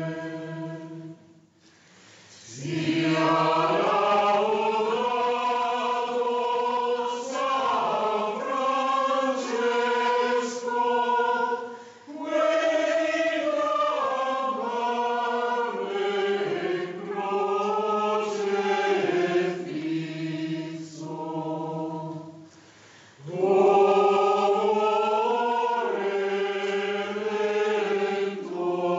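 Mixed choir of women's and men's voices singing in sustained chords. The singing breaks off briefly about a second and a half in and again around two-thirds of the way through, then comes back at its loudest.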